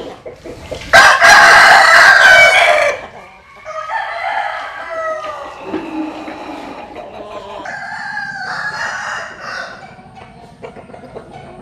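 An American Asil game rooster crows once, loud and close, for about two seconds starting about a second in; other roosters then crow more faintly, overlapping, for several seconds.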